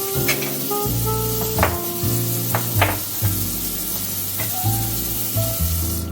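Background music with a steady hiss laid over it and a few sharp clicks; the hiss cuts off suddenly at the very end.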